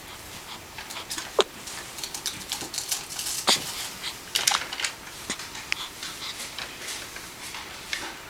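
Newborn baby hiccuping: small, sudden sounds at irregular intervals of a second or two, with breathy snuffles between them. The loudest comes about three and a half seconds in.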